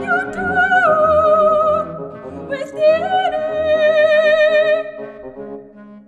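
Soprano singing two long held notes with wide vibrato, the first stepping down about a second in, over a low sustained instrumental accompaniment. The music fades near the end.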